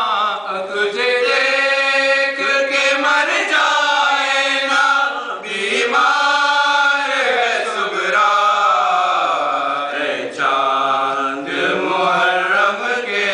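Group of men chanting an Urdu nauha (Muharram lament) without instruments, in long, drawn-out sung lines.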